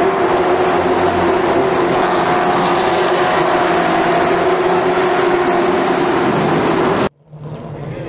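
Late model stock cars' V8 engines running at speed on the track, a loud steady engine drone with a slowly drifting pitch. It cuts off abruptly about seven seconds in, leaving a much quieter background.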